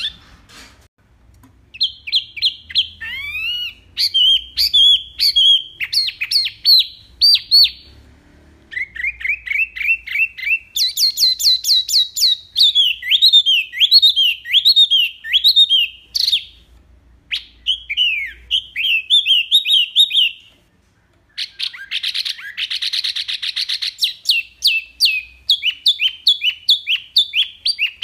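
Wambi mini singing: long runs of quick, clear whistled notes repeated in rapid-fire series, mostly falling in pitch. The phrases are broken by short pauses, with a harsher, denser chattering burst a little past the middle.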